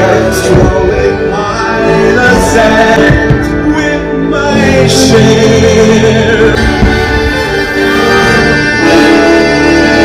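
Music with singing voices over instruments.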